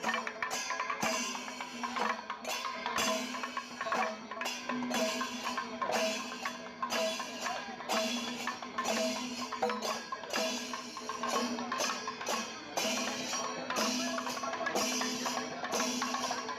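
Music with a steady percussive beat of about two strokes a second over a held tone.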